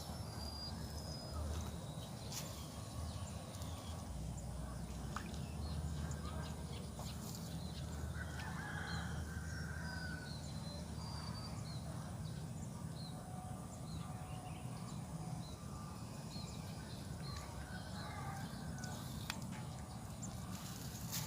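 Outdoor ambience of birds calling, many short high chirps scattered throughout, over a steady low rumble and a faint steady high-pitched tone.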